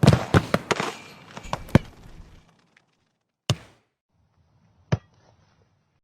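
A ball being kicked: a quick run of sharp thuds in the first two seconds, then two single kicks about three and a half and five seconds in.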